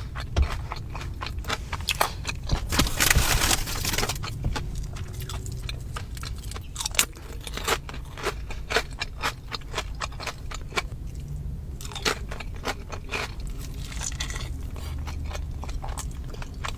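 Close-miked chewing and biting of crunchy food, with irregular sharp crunches and a dense run of crunching about three seconds in.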